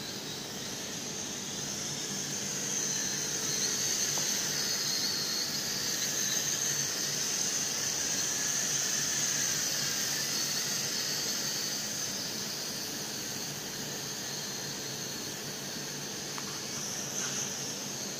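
Night Lions Tech N227 toy quadcopter in flight: the high-pitched whine of its four small electric motors and propellers, its pitch wavering up and down with the throttle. It grows louder for several seconds in the middle as the drone passes close.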